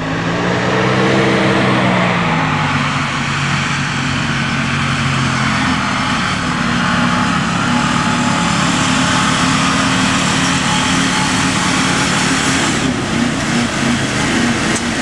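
Jeep Wrangler Rubicon engine revving hard under load on a dirt hill climb. Its pitch rises over the first couple of seconds and then holds high and fairly steady, over the hiss of spinning tyres throwing dirt.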